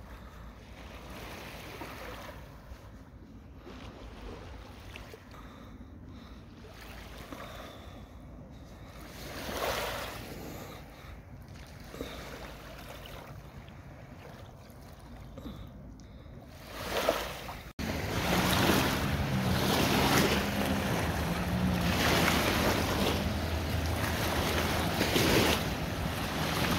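Wind on the microphone and small waves lapping at the reservoir's edge, rising in a few swells. About two-thirds of the way through the sound cuts abruptly to a louder stretch of wind and water with a faint low hum underneath.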